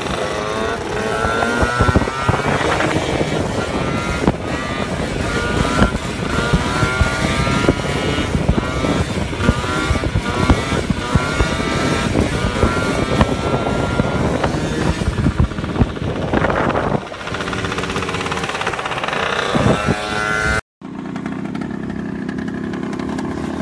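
Scooter engine revving hard during a wheelie, its pitch rising and falling again and again as the throttle is worked, with many short crackles over it. About 21 s in it cuts off suddenly and a lower, steadier engine note follows.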